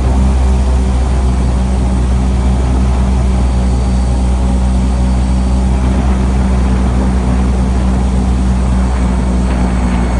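Airboat's engine and propeller running steadily at speed. Loud and even throughout.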